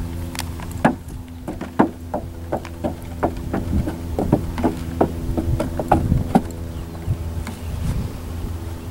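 A mule's shod hooves knocking on a wooden plank walkway as it walks across, giving a string of irregular knocks through the middle of the stretch, over a steady low hum.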